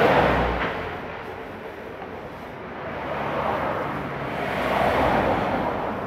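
A broad rushing noise that swells and fades twice, about five seconds apart, over a steady low hum.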